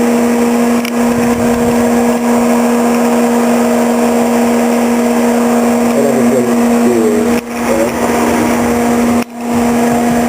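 Cooling fan of a powered-up CT520D welding machine running steadily with a strong electrical hum. The level drops sharply and briefly twice, about 7.5 and 9 seconds in.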